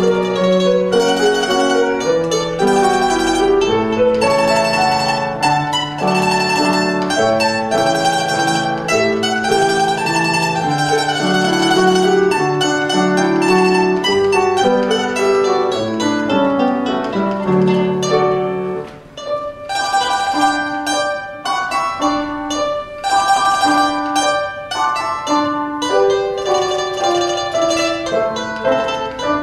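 Small tamburica played with a plectrum, a fast plucked melody, accompanied on grand piano. The music thins briefly about two-thirds of the way through, then goes on in shorter, detached notes.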